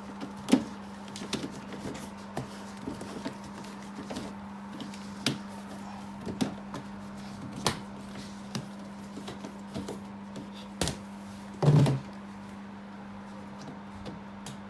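Scattered plastic clicks and knocks as a portable air conditioner's exhaust hose is fitted onto the unit, with one louder thud about twelve seconds in, over a steady low hum.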